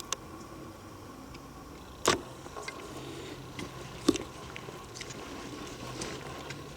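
Handling knocks on a handheld camera rig while walking: three sharp knocks about two seconds apart, the loudest about two seconds in, with fainter ticks between them.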